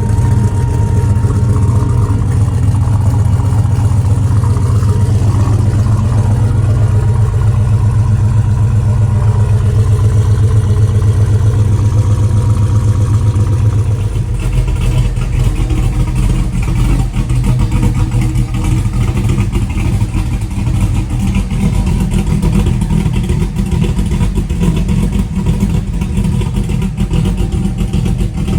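Two V8 engines idling one after the other through their exhausts. First comes a turbocharged LSX V8 with a steady, even rumble. About halfway it switches to a solid-cam 350 Chevrolet V8 with a rougher, choppier idle.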